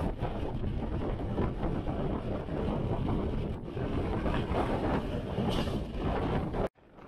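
Wind buffeting the action camera's microphone, a dense, steady rumble that cuts off suddenly near the end.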